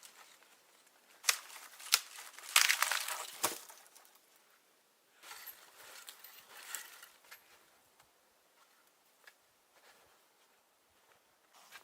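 Crinkling, rustling handling noises with a few sharp clicks, loudest in a burst a few seconds in, then quieter scattered rustles.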